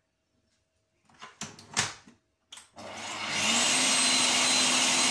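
A few knocks as the stand mixer's head is lowered into the bowl. Then, about three seconds in, the mixer's motor starts, speeds up and runs steadily, its wire whisk beating cold liquid cream with sugar into whipped cream.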